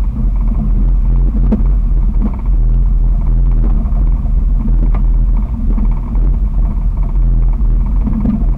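2001 Jeep Wrangler TJ's 4.0-litre inline-six driving along a trail, its exhaust a loud, steady low drone because the muffler has been removed (muffler-back delete). A couple of brief knocks come through, one about a second and a half in and another about five seconds in.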